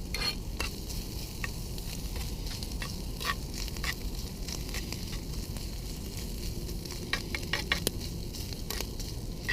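Meat frying in butter in a pie iron over a campfire: steady sizzling with many small, irregular pops.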